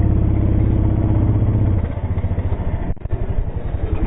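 Small dirt bike engine running under throttle as it is ridden, its note steady for about two seconds and then easing off and turning uneven, with a brief drop in the sound about three seconds in.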